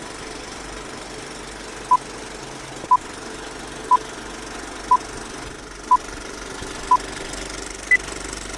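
Film-leader countdown sound effect: an old film projector's steady clatter with a short beep once a second, six at one pitch and a final higher beep. Everything cuts off suddenly right after it.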